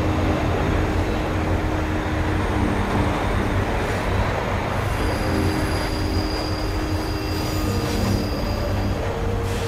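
New York City subway train running on steel rails: a steady rumble with thin, drawn-out wheel squeals over it.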